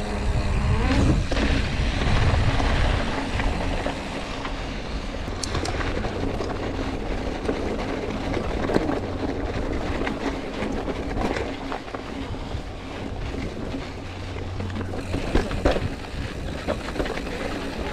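Mountain bike riding over a rough, rocky dirt trail: tyres crunching over gravel and stone, with frequent clicks and rattles from the bike and wind rumbling on the microphone.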